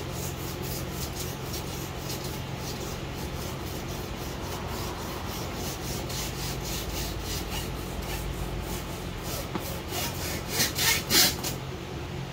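Guitar wire being sawn back and forth through the bonding bead of a car windshield, a rasping rub with each stroke, as the glass is cut out. A quicker run of louder strokes comes near the end, over a steady low hum.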